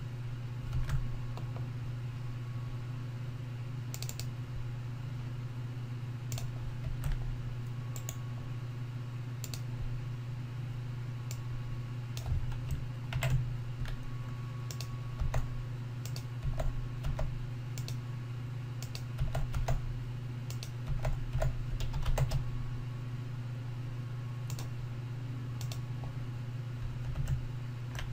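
Computer keyboard typing: irregular keystrokes and clicks, busier in the second half, over a steady low hum.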